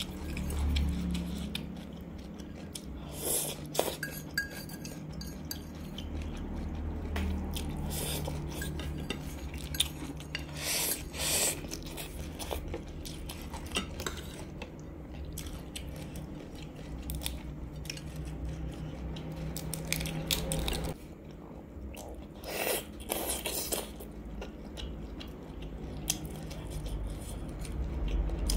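Metal spoon clinking and scraping against a ceramic bowl as the last noodles are gathered, with close-miked chewing and crunching between the clinks.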